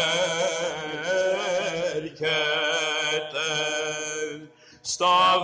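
Solo male Byzantine chant by a cantor (protopsaltis): a long melismatic line of held, ornamented notes, with a short break about two seconds in and a pause for breath near the end before the next word.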